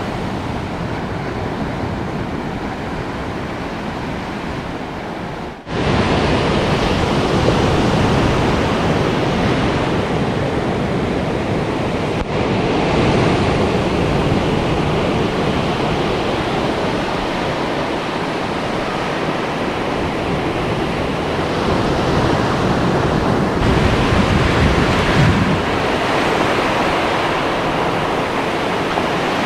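Surf breaking and washing up a sandy beach, a steady rush of wave noise with some wind on the microphone. It jumps suddenly louder about six seconds in.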